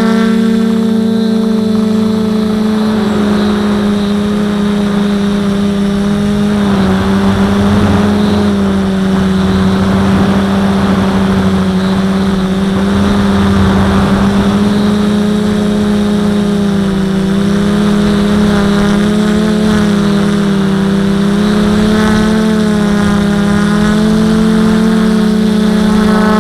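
Quadcopter's electric motors and propellers droning at a steady pitch, the higher tones wavering slightly as the throttle shifts, with a rougher rushing noise from about 7 to 14 seconds in.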